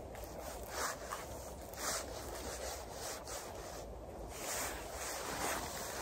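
Knife and gloved hands rustling and scraping through thick, wet moss while cutting mushrooms: a series of short, irregular swishes.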